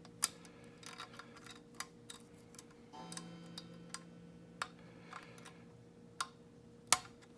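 Scattered sharp metallic clicks and taps of uneven loudness, with short gaps between them, from a wire pick and tensioner working inside a heavy lever padlock, over a faint steady hum.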